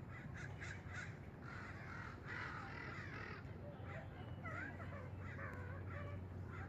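Several crows cawing over and over, their short calls overlapping, over a steady low hum.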